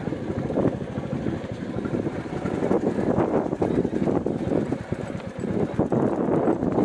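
Royal Enfield Bullet 350 motorcycle's single-cylinder engine running as the bike rides, a rough, uneven rumble with wind noise on the microphone; it eases off briefly about five seconds in.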